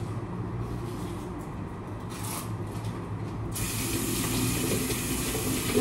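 Water running from a kitchen tap into a sink, over a low steady hum. About three and a half seconds in, the rush suddenly turns fuller and brighter, as if the tap is opened further.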